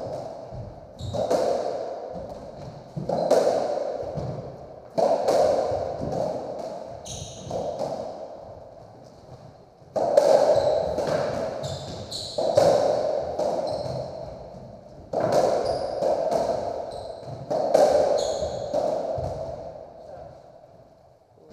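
A racketball rally on a squash court. The ball is struck by the rackets and slams off the walls every two to three seconds, each hit echoing around the enclosed court, with trainers squeaking on the wooden floor between shots. The exchanges stop shortly before the end.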